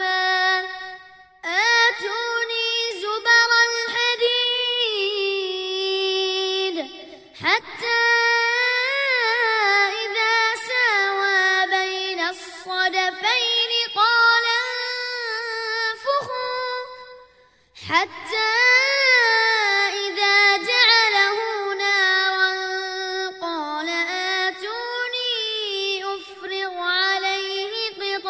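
A child's high voice reciting the Quran in melodic tajweed style, drawing out long ornamented notes, with short breaks for breath about 7 and 17 seconds in.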